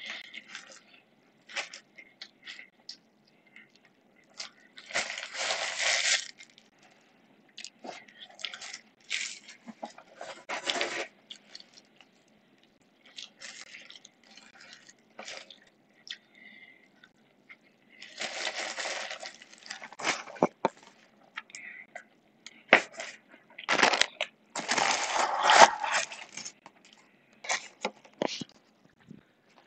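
Intermittent rustling and crinkling with scattered small clicks and knocks, and three longer, louder bursts of rustling about five seconds in, around eighteen seconds and around twenty-four seconds.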